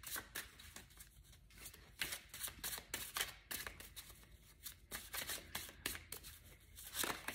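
A tarot deck being shuffled by hand, the cards slipping and flicking against each other in quick, uneven runs of soft rustles.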